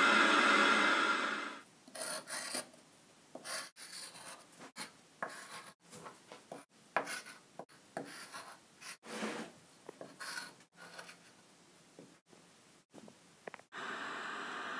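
Chalk scratching on wooden floorboards in short, irregular strokes as letters are written. A steady hiss of TV static comes before the strokes begin and returns near the end.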